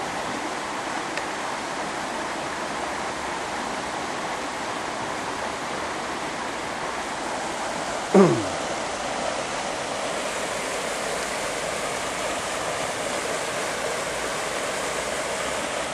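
Stream water rushing steadily. About eight seconds in, a single short sound glides down in pitch.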